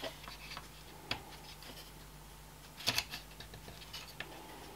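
Faint plastic clicks and light scraping as the top casing of a small projector blower fan is handled and pressed back on, with two sharper clicks about a second in and about three seconds in.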